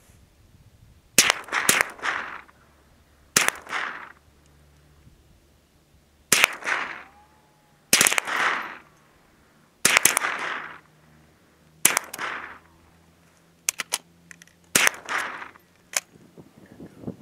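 Rifle shots on a shooting range, about nine of them spaced a second and a half to two seconds apart. Each sharp report is followed by a rolling echo.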